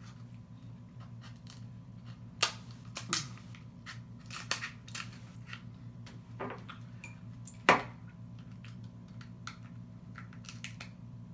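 A crab claw being broken open and picked at while eating: a series of sharp, separate cracks and clicks of shell, the loudest about two-thirds of the way through.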